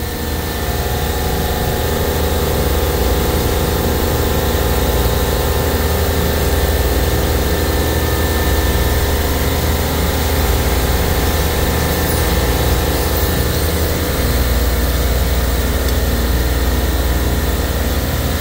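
Supermarket refrigeration compressor rack running with a steady low hum and machine drone. The compressors are still on while they pump the liquid line down.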